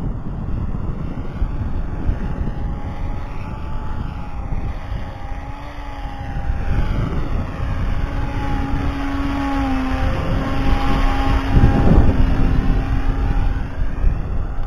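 RC model autogyro's motor and propeller droning in flight, the pitch wavering slightly and the sound growing louder around twelve seconds in. Low wind buffeting on the microphone underneath.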